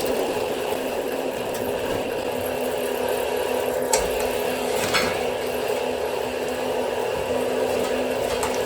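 Drill running steadily under load, turning a homemade wire winder that pulls 2/0 copper cable through a wire stripper, with two sharp knocks about four and five seconds in.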